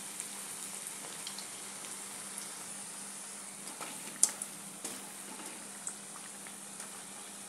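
Potato vadas deep-frying in hot oil in an aluminium kadhai on low heat: a steady bubbling sizzle. A few light clicks of a slotted metal spoon against the pan come through, the sharpest a little after four seconds in.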